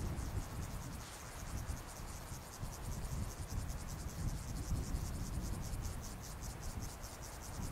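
Insects stridulating in a steady, rapid pulsing chirp, about five pulses a second, over an uneven low rumble of wind on the microphone.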